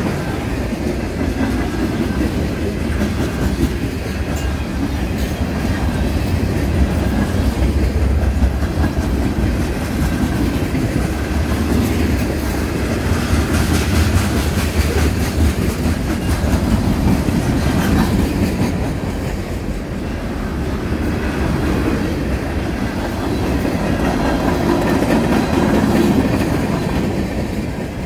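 Freight train cars rolling past close by: a steady heavy rumble that swells and eases as cars go by, with the clack of steel wheels on the rails.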